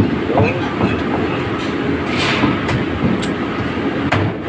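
Heavy cleaver knocking and tapping on a thick wooden chopping block while a grouper is cut up. The knocks come a few times, irregularly, over a steady rumbling background noise.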